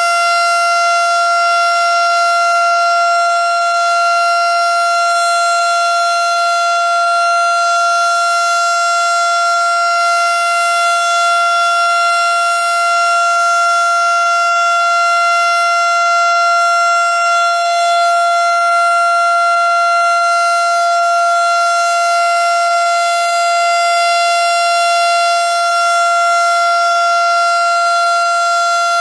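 Federal Signal STH-10 outdoor warning siren sounding a steady alert tone during a test: one loud, unwavering pitch held throughout.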